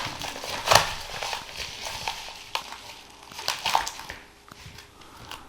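Packaging being handled and torn open: crinkling and rustling with sharp crackles about a second in and again near the end, fading away as the card is unwrapped.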